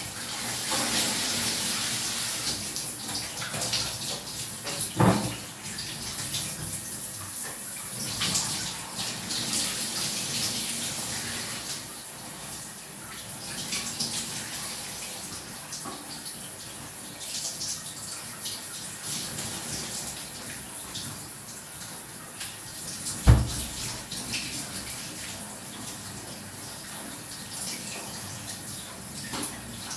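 Shower water spraying from a showerhead: a steady, shifting hiss. Two thumps break through, a small one about five seconds in and a louder one past the middle.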